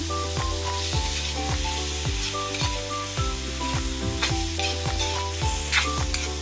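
Diced pork and tomato sizzling in a hot wok while a metal spatula stirs it, with a few short scrapes of the spatula against the pan. Background music with a steady beat plays throughout.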